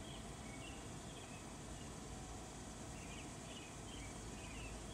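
Quiet outdoor background with faint, scattered bird chirps.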